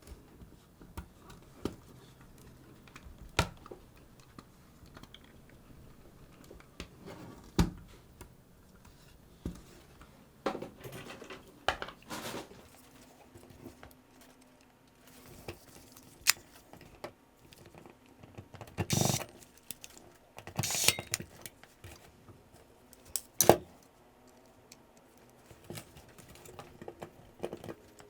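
Small plastic and metal parts and hand tools being handled while a hard-drive recorder's HDD case is reassembled: scattered light clicks and taps, with a few short rustles.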